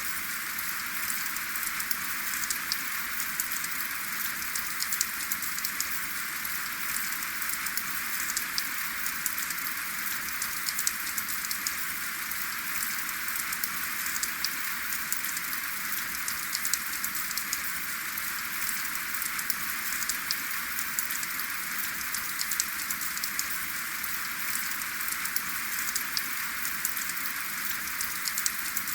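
Steady rain falling: an even hiss with many small individual drop ticks scattered through it, and no thunder.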